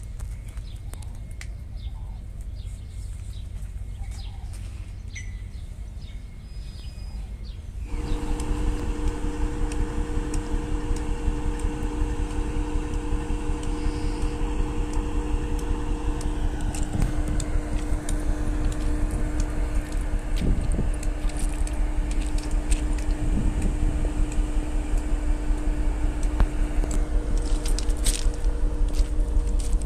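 Diesel-electric locomotive EMDX 7239 running while standing at the head of its train: a steady low rumble with two steady hum tones, which comes in abruptly about eight seconds in after a quieter stretch of low rumble. A few sharp clicks near the end.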